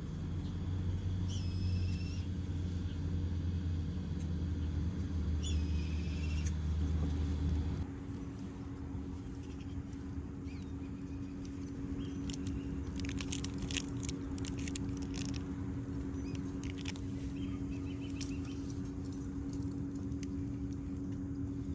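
A steady low engine-like hum, its deepest part dropping away about eight seconds in. Two short high chirps about four seconds apart, and a scatter of light clicks and taps in the second half.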